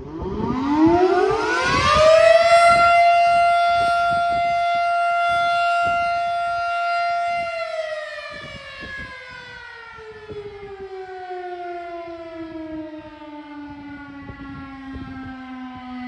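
Federal Model 7 electromechanical siren sounding its noon blast: it winds up to a steady high tone in about two seconds, holds it for about five seconds, then winds down, its pitch sliding steadily lower and still falling at the end.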